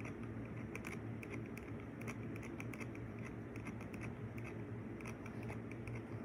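Scattered light clicks and taps of someone working a computer, irregularly spaced, over a steady low hum.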